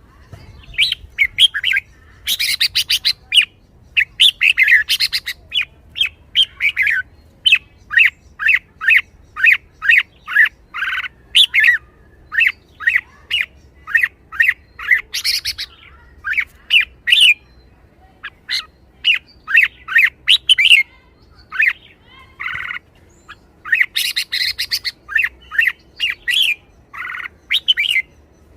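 Red-whiskered bulbul singing: a long run of short, bright whistled phrases, broken by a few harsher chattering bursts and a brief pause about two-thirds of the way through.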